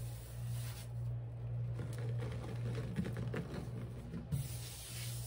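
Soft handling sounds of cleaning powder and a sponge, with a couple of light ticks about three and four seconds in, over a steady low hum.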